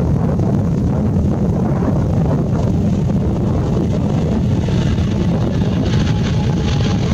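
Boeing 777-200ER's twin GE90 turbofan engines at takeoff thrust, a steady deep rumble as the jet rolls down the runway, with wind buffeting the microphone.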